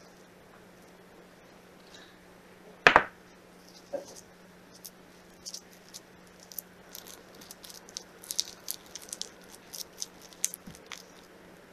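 Silicone spatula mashing and stirring softened butter with minced garlic and chives in a glass bowl: a run of small squelches and clicks, dense in the second half. One sharp thump about three seconds in, and a faint low hum throughout.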